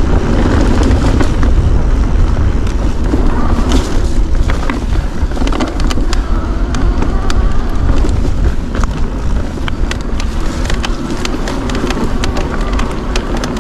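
Mountain bike riding over rocky single track: wind rumbling on the microphone, tyres crunching over loose stone, and sharp clicks and rattles from stones and the bike, coming thicker from about four seconds in.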